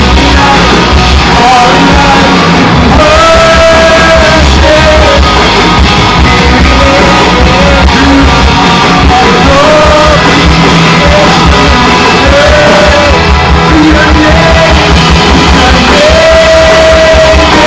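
Live rock band playing loud, with a lead singer holding sustained notes over a steady driving beat.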